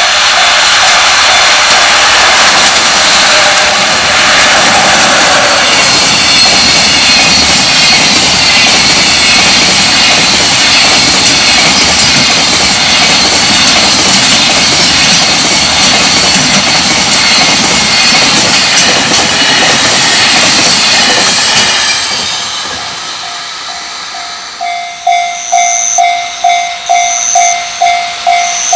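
Long container freight train passing close by at speed: a loud, steady rush and rattle of wheels on rail and wagons that fades out after about 22 seconds. Near the end a Japanese level-crossing warning bell rings in an even, repeating two-tone clang, about one and a half strikes a second.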